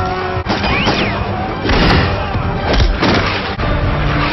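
Battle-scene sound effects of explosions and gunfire, with several heavy booms and crashes, set over background music.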